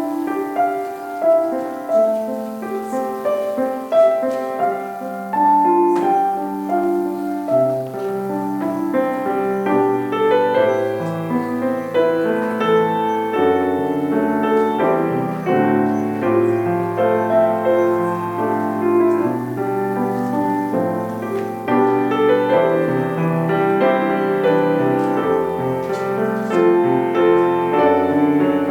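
Solo piano playing offertory music: a slow melody over chords, with low bass notes joining about eight seconds in.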